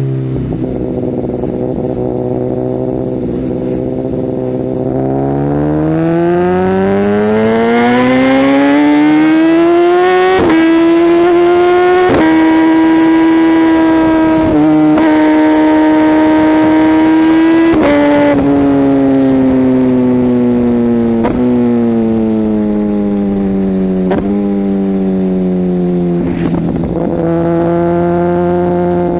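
Kawasaki ZX-10R inline-four engine through a Mivv aftermarket exhaust, under way: the revs climb steadily from about five seconds in, hold at a high steady pitch for several seconds, then fall away slowly, and rise again near the end.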